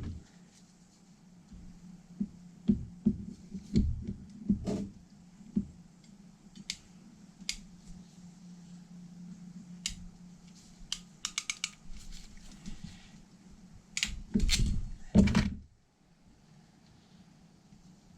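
Hand work on a starter motor on a workbench: scattered clicks, taps and knocks of small metal parts and tools, with a quick run of clicks a little past the middle and a louder clatter near the end. A steady low hum runs underneath.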